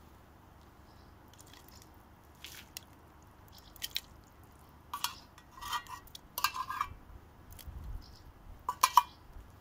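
A metal spoon scraping and clinking against an opened tin can as the canned fish is scooped out into a pot of broth, with soft wet plops. The clinks come in scattered bursts and are sharpest near the end.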